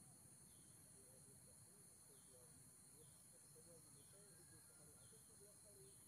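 Near silence: faint outdoor ambience with a steady high hiss and soft, faint chirps about once a second.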